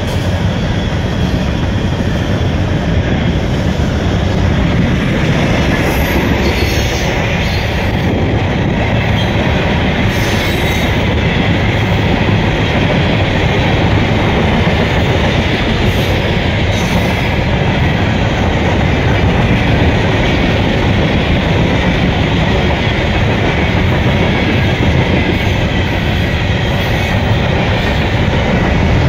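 Loaded CSX freight train of coke-filled hopper cars rolling past, a loud, steady noise of steel wheels running over the rails.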